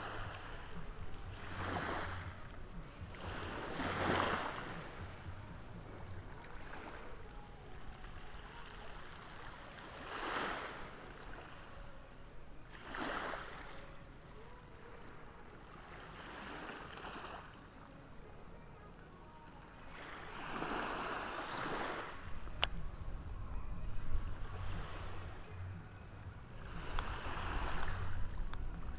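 Ocean waves breaking on the shore: a steady wash of surf with a louder rush swelling and fading every few seconds, about seven times. A low rumble joins in the last third.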